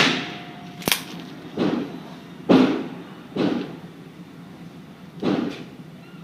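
Several quieter gunshots, each with a short echoing tail, fall at irregular intervals of about a second or two, with a single sharp click about a second in. They are much fainter than the shooter's own revolver shots, which come just before and just after.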